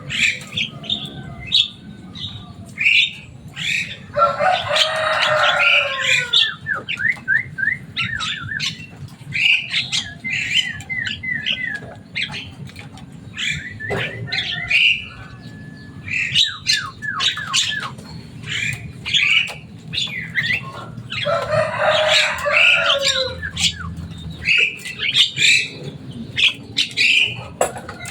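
Javan myna calling loudly: a steady run of short chattering whistles, chirps and clicks, broken twice by long harsh screeching bursts, each ending in a quick series of falling notes.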